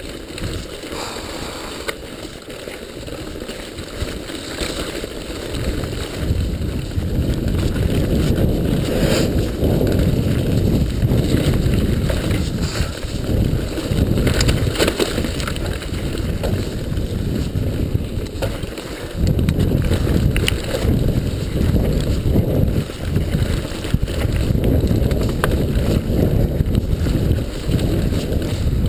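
Mountain bike descending a rough dirt trail at speed: wind rushing over the camera's microphone, with frequent knocks and rattles from the bike running over the uneven ground. It gets louder about six seconds in.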